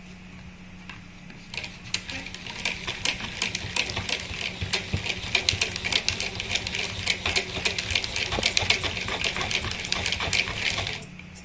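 Hand-cranked generator built from a small electric motor, clattering with rapid mechanical clicking as it is turned by hand. It starts about a second and a half in and stops shortly before the end, over a steady low hum.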